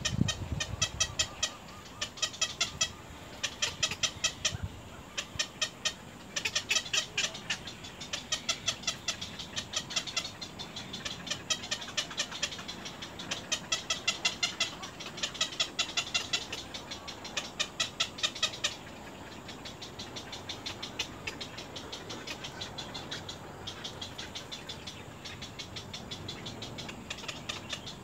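Heron nestlings giving rapid ticking calls in runs of about a second, repeated over and over. The ticking turns fainter and steadier for the last third.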